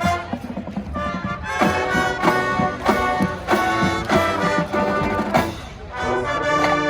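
Marching band playing: brass chords over a drumline beat, with a short dip just before a held chord near the end.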